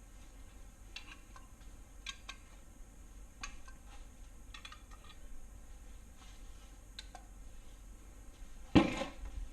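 Scattered light metallic clicks and clinks of a bolt and hand tools being handled at an engine crankshaft, with one louder metal clunk near the end.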